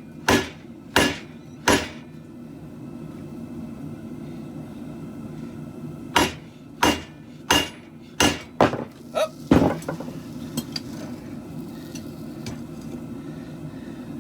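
Hammer blows on the steel of a khopesh blade being forged: three ringing strikes about 0.7 s apart, a pause of about four seconds, then about seven more strikes, coming quicker near the end, followed by a few faint taps. A steady low hum runs underneath.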